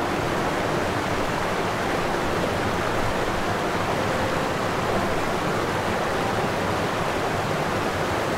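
A steady, even rushing noise that does not change, starting abruptly right where the music cuts off.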